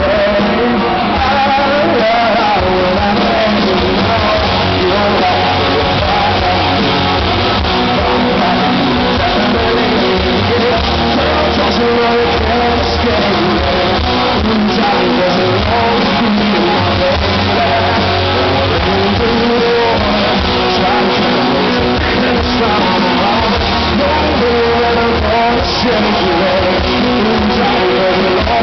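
Live rock band playing loudly, with electric guitar and singing over it, heard through the crowd's recording.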